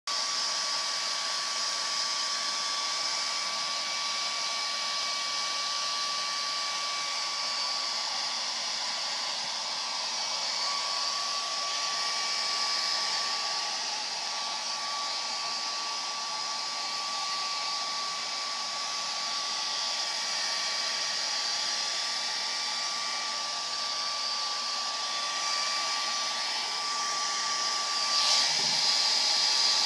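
Hair dryer running steadily: a rush of air with a thin, steady whine, blowing on a wet kitten after its bath. It gets a little louder near the end.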